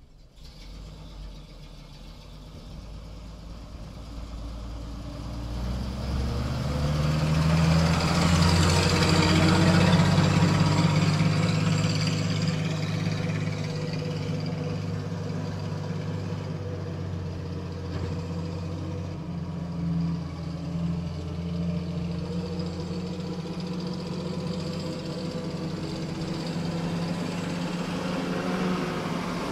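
M5A1 half-track's International Harvester six-cylinder petrol engine running as the vehicle drives. It grows louder over the first several seconds, is loudest about eight to ten seconds in, then runs steadily.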